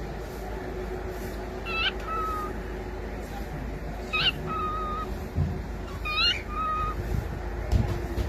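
Cockatiel calling three times, about two seconds apart: each call is a sharp upswept chirp that drops into a held, steady whistled note.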